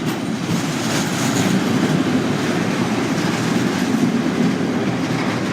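Freight train headed by a Class 66 diesel locomotive passing close by, a steady loud noise of wheels running on the rails that builds slightly after the first second.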